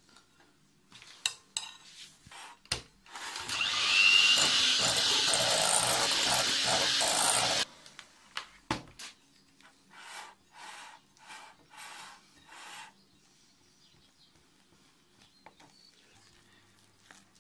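Electric hand mixer beating whipped cream and chocolate in a glass bowl, running steadily for about four and a half seconds and then cutting off suddenly. Before and after it, a silicone spatula scrapes and folds the mixture against the glass in short strokes.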